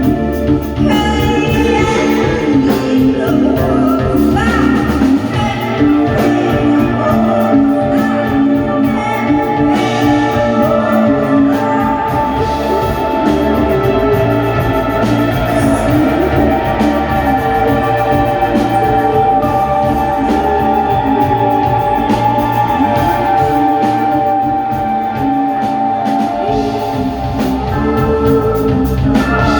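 Live band playing a song, with singing over drums and guitar.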